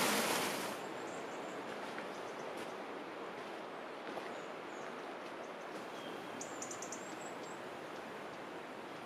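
A rushing stream cuts off under a second in, leaving quiet outdoor ambience: a steady soft hiss with a few faint, high bird chirps.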